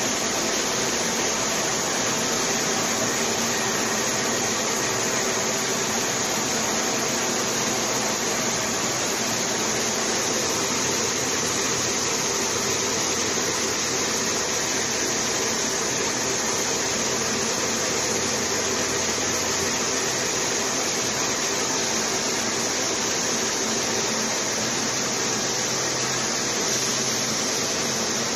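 Steady, even running noise of a line of waste-clothing tearing and opening machines, whose fans blow the torn fibre through overhead steel ducts, with no distinct knocks or changes.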